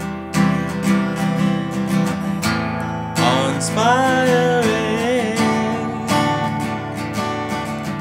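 Acoustic guitar strummed steadily. About three seconds in, a single long sung note slides up and wavers for about two seconds.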